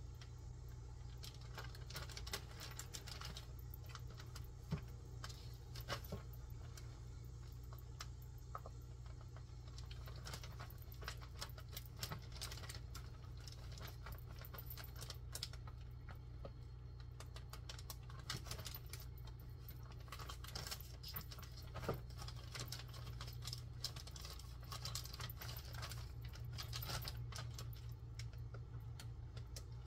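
Metal kitchen tongs clicking and tapping against a plastic tub as marinated chicken pieces are lifted out and dropped into a plastic zip-top bag of flour, with the bag crinkling. A steady low hum runs underneath.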